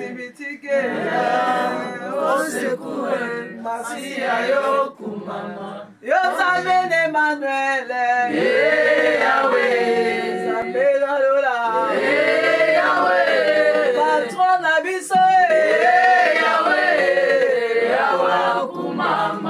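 A group of women singing together a cappella, several voices in unison. The singing is thinner for the first few seconds and becomes fuller and steadier about six seconds in.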